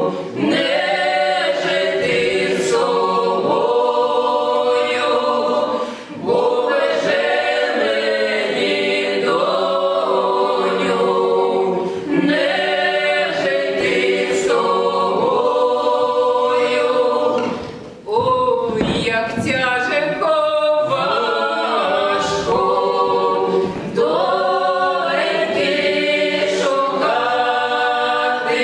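Mixed ensemble of women's and men's voices singing a folk psalm (a sacred song) a cappella in several-part harmony. Short breaks between phrases come about 6 and 18 seconds in.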